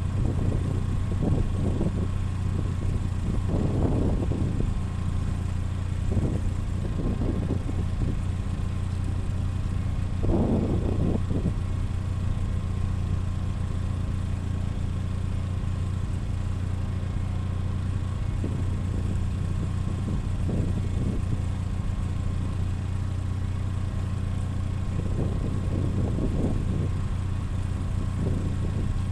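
An engine running steadily at idle with a low hum, rising in several louder surges of a second or two each.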